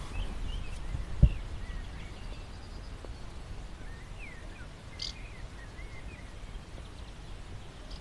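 Small birds chirping and twittering in short rising and falling calls over a steady low outdoor rumble, with one sharp low thump about a second in.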